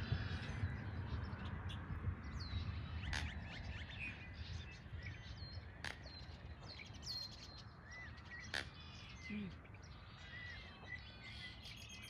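Several small birds chirping and twittering at once, with short high notes and falling whistles overlapping throughout, over a steady low rumble.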